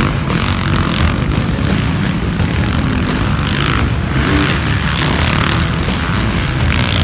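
Several motocross dirt bikes racing through a dirt-track turn, their engines revving up and dropping off in repeated surges as riders pass.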